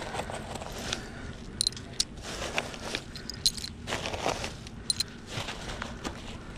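Plastic trash bags rustling and scraping as a gloved hand rummages through a dumpster, with scattered knocks and a few sharp, light metallic clinks.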